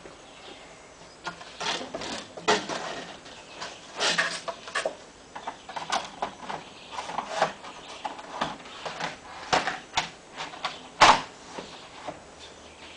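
Long vinyl siding panel being handled and fitted by hand: irregular plastic rattles, knocks and clicks as it flexes and is pushed into place against the wall, with one sharp click about two seconds before the end.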